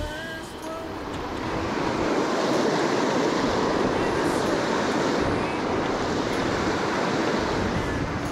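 Rushing creek water pouring through a riffle: a steady wash of noise that swells about two seconds in and then holds.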